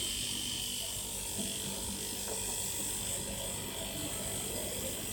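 Salvaged refrigerator compressor running with a steady electric hum and buzz.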